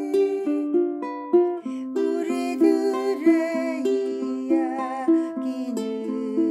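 Ukulele fingerpicked in an arpeggio pattern, the notes of each chord plucked one after another in a steady, even rhythm.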